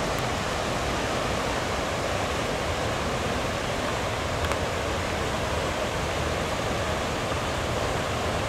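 The swollen Delaware River in flood, its fast floodwater rushing past as a steady, even noise.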